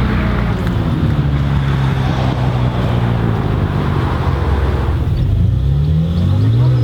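Supercharged 4.6-litre V8 of a G-Power Hurricane RS BMW M3 E92 with Akrapovic exhaust, running at a steady low pitch, then revving up over the last two seconds.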